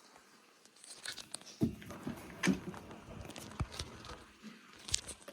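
Handling noises from the Dyson CY23 Cinetic Big Ball 2 vacuum cleaner and its power cord being picked up and moved: scattered clicks and knocks over rustling.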